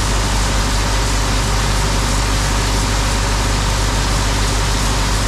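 Steady running of a tractor engine driving a grain auger through its PTO, an unbroken mechanical drone with a strong low hum.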